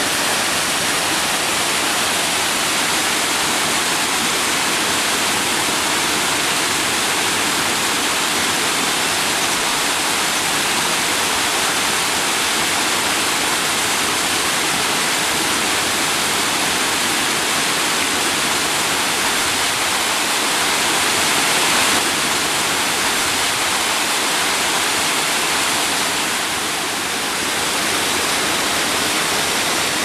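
Steady, loud rush of the Duruitoarea waterfall, water falling down a rocky gorge, swelling slightly about three-quarters of the way through.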